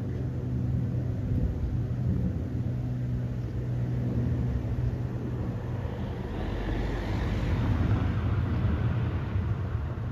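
Aircraft engine rumble with a steady low hum. About six seconds in, a rushing hiss swells, peaks, then fades as the aircraft passes.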